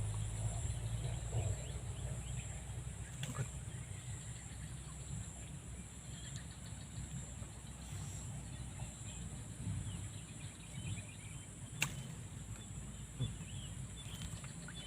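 Quiet forest lakeside ambience: a steady high-pitched insect drone over a low rumble, with faint scattered chirps and two brief clicks, one about three seconds in and one near the end.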